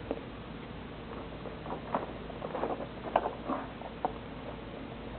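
A baby playing in a plastic activity saucer: a handful of short, scattered clicks, knocks and small squeaky sounds from the toys and tray, mostly in the middle stretch, over a faint steady hum.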